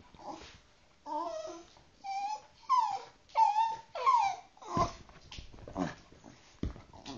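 Jack Russell terrier whimpering in a run of short high whines, then giving several short, sharp sneezes a second or so apart: excited play sneezes in a sneeze-on-cue game.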